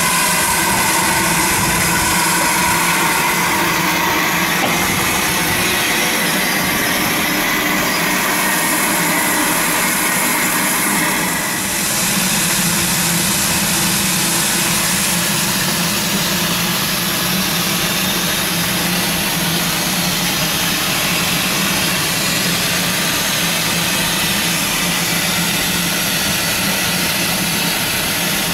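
LMS Ivatt Class 2 steam locomotive standing with steam hissing steadily from around its cylinders and motion: a loud, continuous rushing hiss over a low steady tone, dipping briefly about halfway through.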